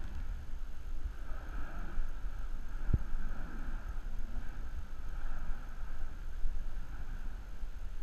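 Steady low rumble and hiss from Mount Yasur's crater as the vent degasses, mixed with wind buffeting the microphone. One short knock about three seconds in.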